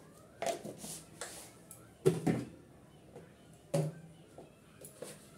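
Spice containers and kitchen utensils being handled and set down: a few short knocks and clicks, the loudest a little over two seconds in.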